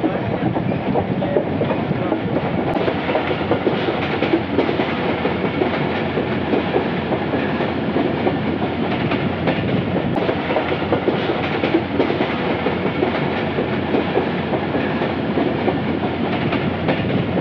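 Passenger train running, heard from aboard: a steady rumble of wheels on the track and rattling coaches, with occasional clacks at the rail joints.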